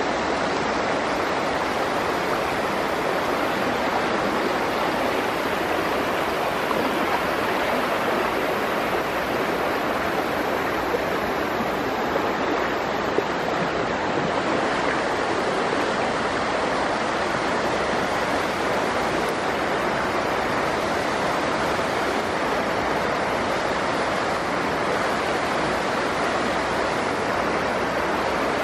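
Kickapoo River floodwater rushing steadily across and over the edge of a submerged highway, the river at flood stage overtopping the road.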